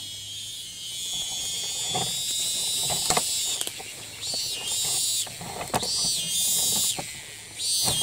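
Cicadas singing: a loud, steady, high-pitched buzz. About halfway through, one song breaks into a rhythm of loud buzzing phrases, each under a second long, with short pauses between them. A few faint knocks are heard along with it.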